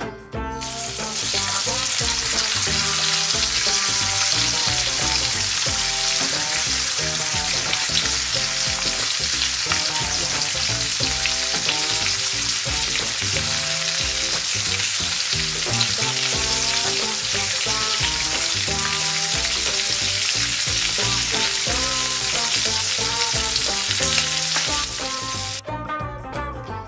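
Steak frying in a miniature cast-iron skillet of hot fat: a loud, steady sizzle that starts about a second in as the meat goes into the pan and cuts off near the end.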